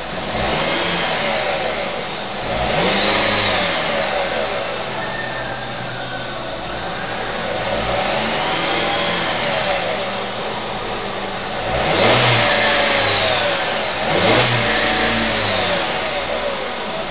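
2007 Dodge Caliber's 2.0-litre inline-four engine running in Park and revved up and back down about five times, the loudest rev about twelve seconds in. It is a running check of a used engine, showing it revs freely.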